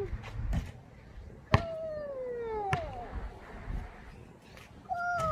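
A young child's voice calling out in drawn-out cries that each slide down in pitch over about a second, several in a row. Two sharp knocks come along with them.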